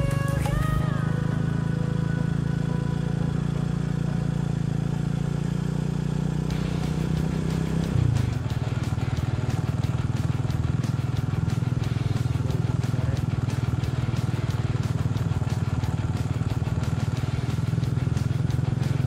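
Small motorcycle engine running steadily while riding, with a brief change in the engine note about eight seconds in. A short background melody fades out in the first second.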